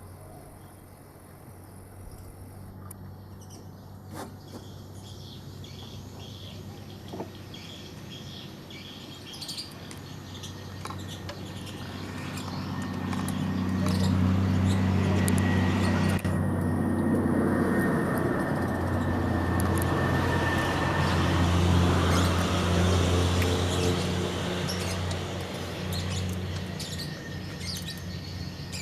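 Kubota DC70 combine harvester's diesel engine running steadily, growing louder about halfway through and easing back near the end, with birds chirping over it.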